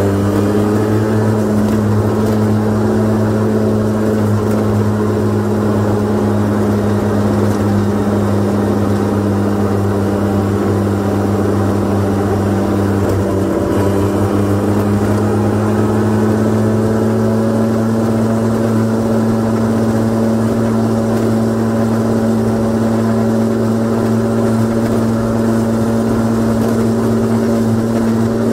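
Honda Gyro X (TD01, late type) 49 cc two-stroke single-cylinder engine idling steadily with a deep, low note, its pitch rising slightly in the first second and then holding steady.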